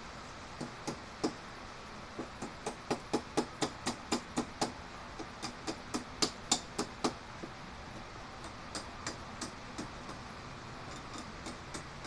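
A welder's chipping hammer tapping rapidly on a fresh weld on steel rebar, knocking off slag, at about three to four metallic taps a second. The strikes are harder in the first half and lighter near the end.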